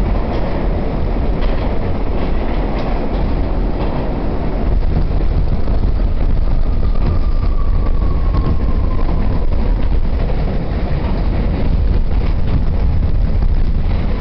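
R68 subway car running at speed through a tunnel, heard from inside the car: a loud, steady rumble of wheels on rail, with rail-joint clicks over the first few seconds. A faint falling whine comes in the middle.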